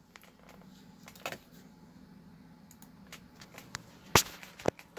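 Sharp clicks over a faint steady hum: a light click about a second in, then two loud clicks about half a second apart near the end.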